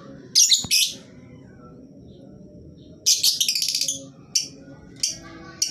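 Lovebird shrieking: two sharp shrill calls just after the start, a fast rattling chatter about three seconds in, then a few short chirps.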